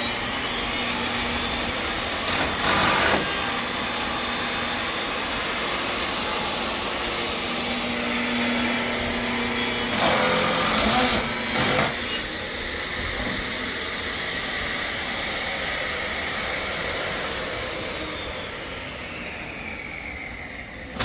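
Pressure washer running steadily, with louder bursts of spray about two and a half, ten and eleven and a half seconds in. Its pitch sinks and it grows quieter near the end.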